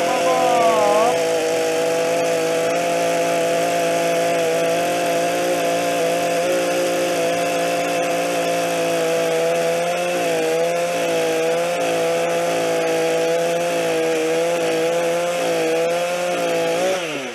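STIHL MS 231 two-stroke chainsaw, running on STIHL MotoMix premix, held at full throttle while its chain cuts through a log. The engine note wavers slightly under load and drops off near the end.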